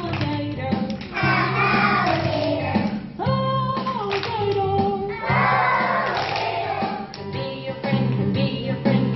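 Children's song: a kindergarten class singing along with a backing track that has a steady, repeating accompaniment.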